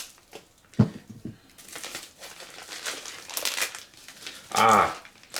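Plastic mailer packaging crinkling and tearing as it is handled and opened, with a knock about a second in. A short voiced sound comes near the end.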